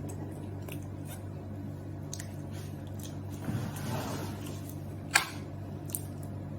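Eating sounds: a soft, wet squishing about three and a half seconds in, then a sharp click just past five seconds and a smaller click about a second later, over a steady low hum.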